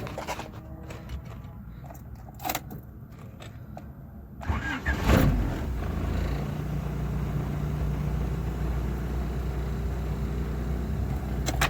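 A few sharp clicks, then about four and a half seconds in a Honda four-cylinder engine cranks briefly, fires and settles into a steady idle on its stock distributor ignition.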